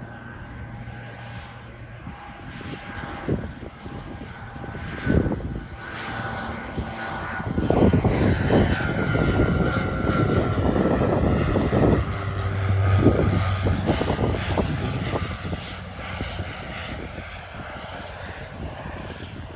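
Aircraft engines passing overhead: a whine that slowly drops in pitch and a loud roar that builds to a peak about eight seconds in, holds for several seconds, then fades away.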